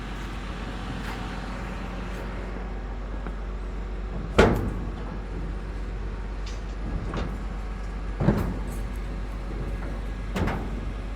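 Steady low machine hum with sharp knocks or clanks over it: the loudest about four seconds in, then two more about eight and ten seconds in.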